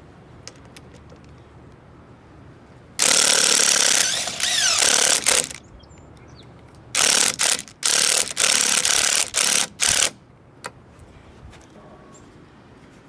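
Makita TD020D 7.2 V pen-style cordless impact driver run in bursts. First comes one run of about two and a half seconds, with its pitch sliding down partway through. After a pause come several short trigger pulls in quick succession.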